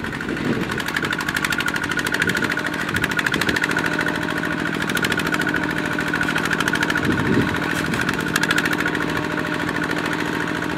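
Single-cylinder diesel engine of a two-wheel walking tractor running steadily under load with an even, rapid chugging beat, hauling a trailer of rice sacks through deep mud.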